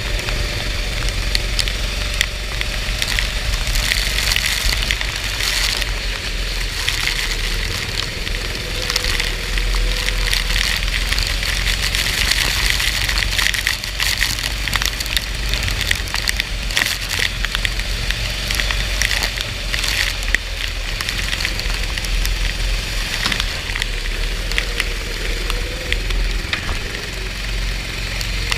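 Rain and spray pelting a racing kart's onboard microphone: a dense crackling hiss full of sharp clicks over a low rumble. The kart's engine comes through faintly underneath as a wavering tone.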